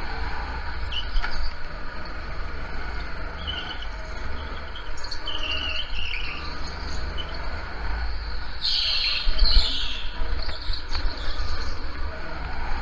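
Go-kart tyres squealing in short wavering chirps as the kart slides through corners on a slick indoor track, the loudest about nine seconds in, over a steady low rumble of the kart running.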